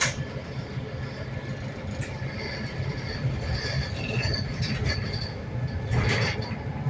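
Interior running noise of a Wright New Routemaster hybrid bus on the move: a steady low rumble with a faint high whine, a few sharp clicks, and a short rush of noise about six seconds in.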